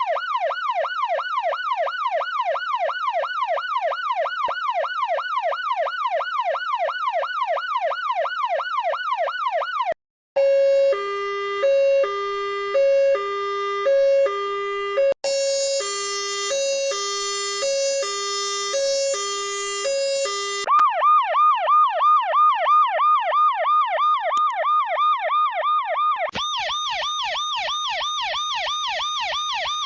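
A series of emergency-vehicle sirens played one after another. First a fast rising-and-falling yelp, about three sweeps a second, for about ten seconds. Then a two-tone hi-lo siren alternating about once a second, turning brighter partway through. Then a higher, louder fast yelp, and near the end a rapid warbling tone.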